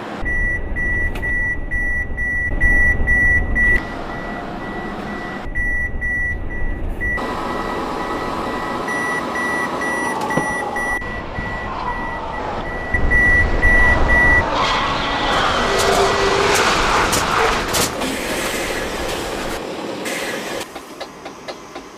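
Mercedes-Benz Actros truck's Active Brake Assist collision warning beeping over the low rumble of the engine, a single high tone held in long stretches and then pulsing rapidly. About fifteen seconds in, a burst of loud rattling noise rises as the beeping stops, and a run of sharp clicks follows near the end.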